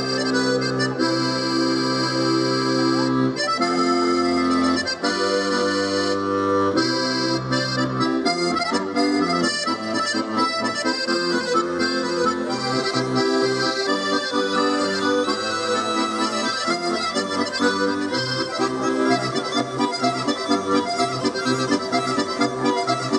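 Diatonic button accordion playing: long held chords for the first several seconds, then a quicker rhythmic tune.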